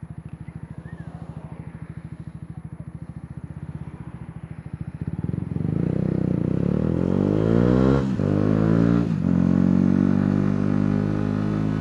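Yamaha YZF-R125's single-cylinder four-stroke engine idling with an even pulse, then revving up as the bike pulls away about five seconds in. Two brief dips in the note around eight and nine seconds in are upshifts, and after them it runs on at a steady higher speed.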